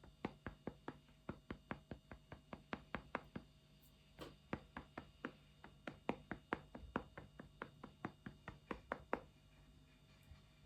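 Rapid light tapping on a hard surface, about four taps a second, with a short pause a few seconds in; it stops about nine seconds in.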